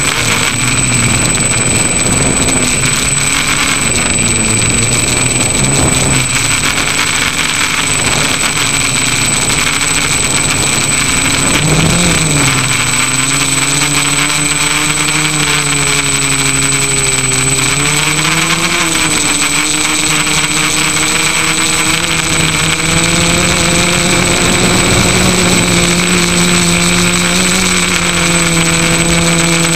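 FPV drone's electric motors and propellers running, picked up by the onboard camera: a steady high whine over a lower buzzing hum whose pitch follows the throttle, with a sharp dip and recovery about twelve seconds in and a rise again later.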